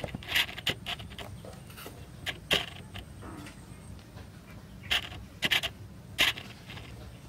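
Light, sharp clicks and taps from hands handling a forged steel carving chisel with a wooden handle, about eight in all and irregularly spaced, over a steady low background hum.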